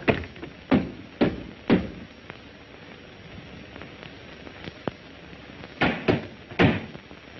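A series of heavy thuds: four about half a second apart, then three more near the end.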